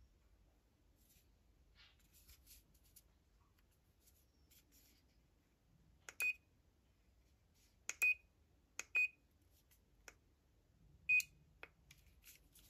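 ANLAN multipolar radiofrequency facial device beeping four times as its button is pressed: each a short, high single-pitch beep with a click, a second or two apart. Faint handling rustles and clicks come before the beeps.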